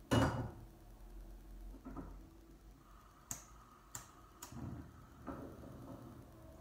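A pot knocks as it is set down on the gas stove, then the hob's igniter clicks sharply three times as the burner is lit.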